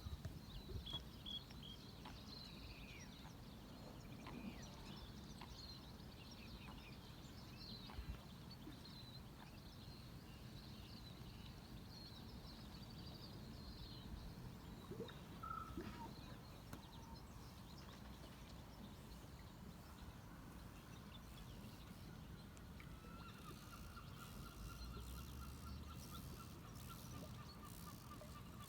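Quiet outdoor ambience with scattered small bird chirps. Near the end comes a longer, rapid pulsing bird call.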